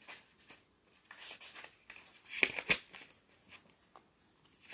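Rustling and light taps of tarot cards and paper being handled, with a louder rustle about two and a half seconds in.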